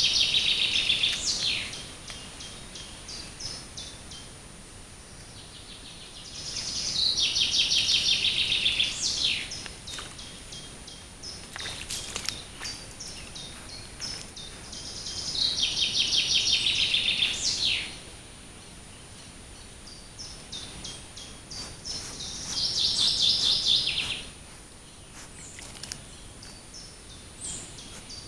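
A songbird singing the same short phrase four times, about every seven or eight seconds: a fast run of repeated high notes ending in a quick flourish, over a steady outdoor hiss.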